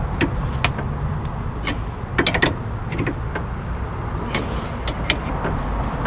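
Ball joint press being tightened with a wrench on a VW Beetle's front tie rod end: scattered sharp metal clicks and creaks from the tool and joint, with a short cluster about two seconds in. A steady low rumble runs underneath.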